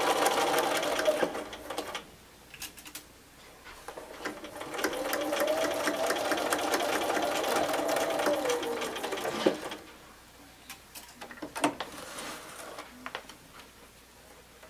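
Bernina sewing machine stitching in two runs: a short run that winds down about a second in, then a longer steady run from about four seconds to nine and a half seconds in that drops in pitch as it slows to a stop. A few light clicks near the end.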